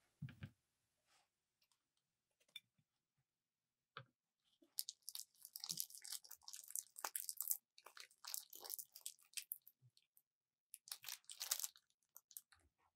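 Plastic piping bag crinkling and crackling as it is squeezed, with thick violet slime glue squelching out of the tip into a glass dish. It comes in three bursts of dense, crackly clicks, the longest about five seconds in, after a soft handling bump at the start.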